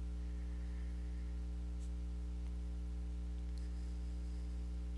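Steady low electrical hum with a faint hiss behind it, unchanging throughout; no sound of the work on the page stands out.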